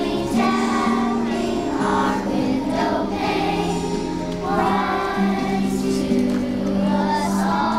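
A choir of young children singing a song together, in held notes.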